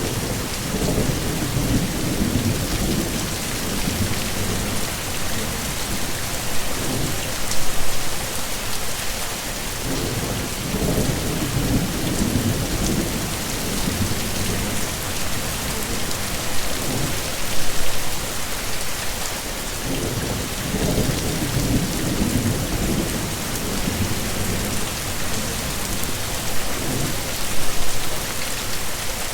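Heavy rain hissing steadily, with low thunder rumbling in three long rolls, each several seconds long and starting about every ten seconds.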